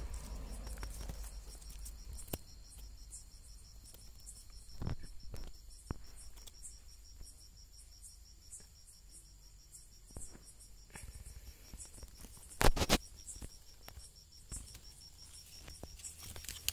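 Crickets chirping at night in a fast, even pulse. A few short knocks break in; the loudest comes about three-quarters of the way through.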